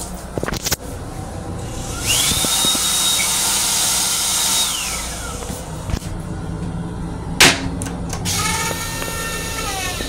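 Metro-North M7 railcar toilet's flush cycle: a few clicks, then a motor whine that spins up, runs steadily for a couple of seconds and winds down. About 7.5 seconds in there is a loud sharp knock, followed by a second whine that drops in pitch as the bowl rinse finishes.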